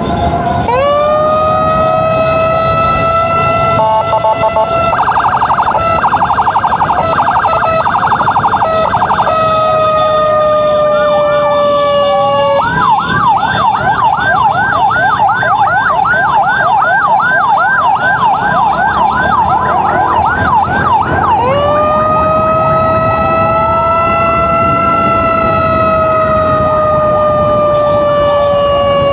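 Electronic emergency siren of an ambulance escort, cycling through its tones. It starts with a wail that rises about a second in and slowly falls, then a rapid pulsing stretch, then a fast yelp of about three sweeps a second through the middle, then a wail that rises again and slowly falls near the end. Motorcycle engine and road noise run underneath.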